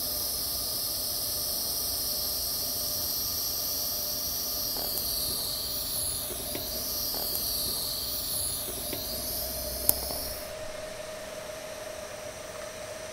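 TIG welding arc hissing steadily, with a faint steady tone under it. The hiss cuts off about ten and a half seconds in, just after a single sharp click, leaving a quieter steady hum.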